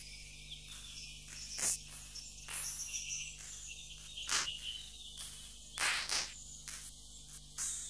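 Crickets chirring, high and dense, with sharp clicks at irregular gaps of one to two seconds over a faint low hum, opening an ambient music track.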